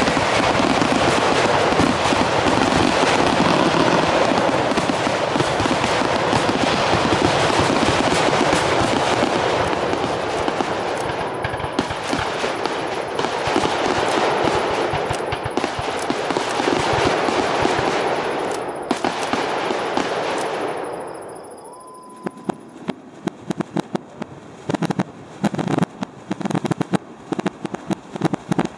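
Fireworks finale: aerial shells bursting in a dense, continuous run of bangs and crackling for about twenty seconds. It then fades, and separate sharp bangs follow in quick succession.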